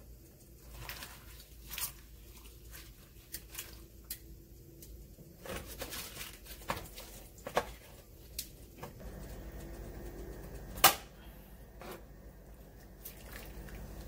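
Leafy greens being put into a metal pot of hot water for blanching and handled with tongs: soft leaf handling with scattered light taps and clicks against the pot, one sharp clack about eleven seconds in. A low steady hum comes in about nine seconds in.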